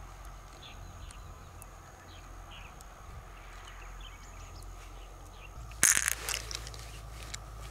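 Faint outdoor background with scattered small bird chirps, then about six seconds in a sudden loud crunching scrape that tails off in a few smaller crackles: freshwater mussel shells being handled with gloved hands close to the microphone.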